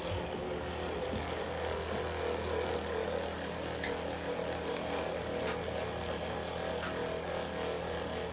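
Electric handheld massager running with a steady motor hum.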